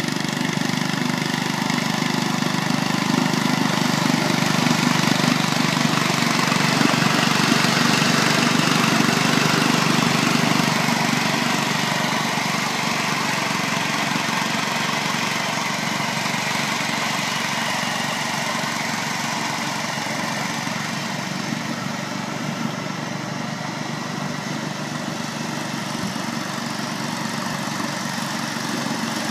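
Ride-on lawn mower's engine running steadily as it drives and cuts grass, swelling louder about a third of the way through and easing off a little after.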